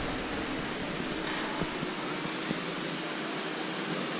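Steady, even background hiss with a few faint soft ticks.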